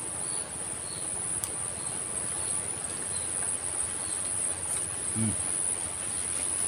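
Insects trilling steadily at a high pitch: one unbroken tone with a fainter pulsing tone just beneath it.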